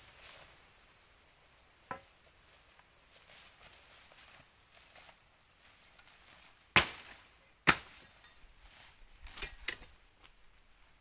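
Sharp chopping strikes of a blade, five in all, the two loudest in the middle about a second apart, over a steady high drone of insects.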